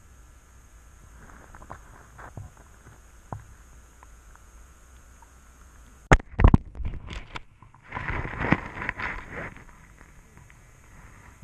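Underwater sound picked up through a GoPro's waterproof housing: faint scattered ticks, then a few loud knocks against the housing about six seconds in, and a spell of rough scraping and rustling a couple of seconds later.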